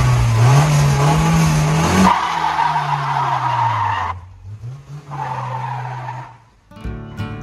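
Mercedes-Benz W124 200 E's 2.0-litre four-cylinder petrol engine revving hard while the rear tyres spin and squeal in a burnout. The engine note rises and falls, breaks off abruptly a few times, and plucked-guitar music comes in near the end.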